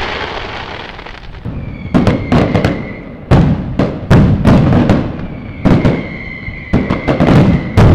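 Fireworks going off: a rapid series of sharp bangs, each trailing off in a crackle. A high steady whistling tone comes and goes behind them.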